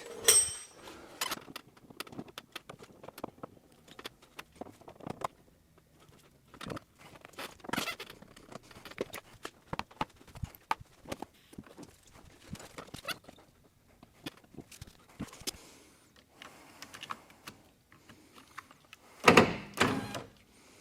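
Car door being taken apart by hand: scattered clicks, taps and knocks of tools, fasteners and trim parts, with a louder clatter of knocks near the end.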